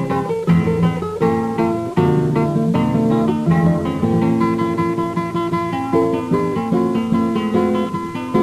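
Solo acoustic guitar played with the fingers: a steady flow of plucked notes and chords.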